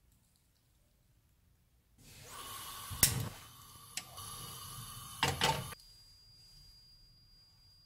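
Saucepan and utensils handled on a gas hob: a few sharp clicks and knocks, the loudest about three seconds in and a short cluster a little after five, over a faint noise bed, after a couple of seconds of silence.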